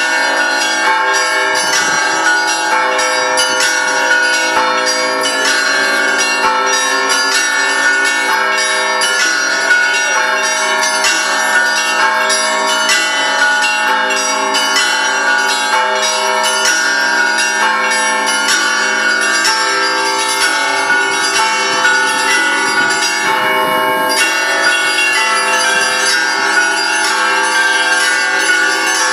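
Russian Orthodox church bells ringing a continuous peal: many bells struck in quick succession, their tones overlapping and sustaining into one another.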